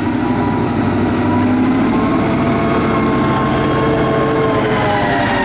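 EMD 567 diesel prime mover of a Herzog rail train's power car running steadily as the unit passes close by, its tones sagging slightly in pitch near the end as it moves away.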